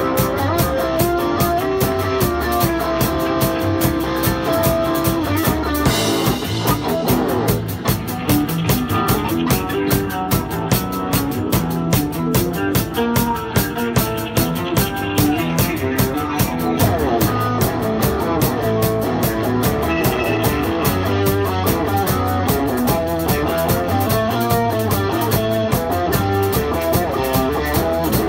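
Live rock music from an electric guitar and a clear acrylic drum kit, playing steadily with a driving beat; the sound grows fuller about six seconds in.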